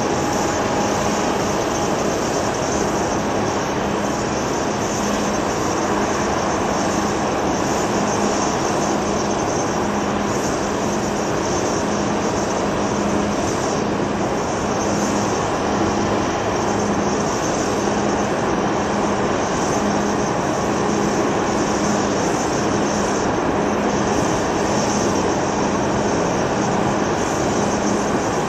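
Jet engines of a taxiing Boeing 747-8 Freighter, four GE GEnx engines at low taxi thrust: steady jet noise with a low hum that pulses about once a second.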